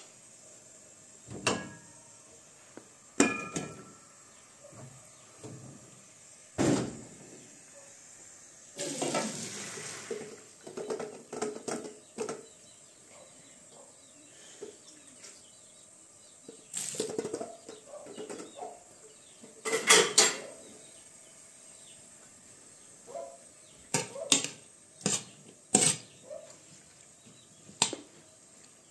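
Stainless steel pots, bowls and a metal skimmer being handled, giving scattered clinks, knocks and scrapes of metal on metal, with a longer rustling scrape a third of the way in and a few louder clatters later.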